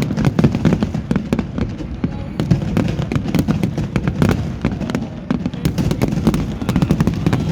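Fireworks display going off in quick, irregular succession: many sharp bangs and crackles, one after another, over the low murmur of a crowd.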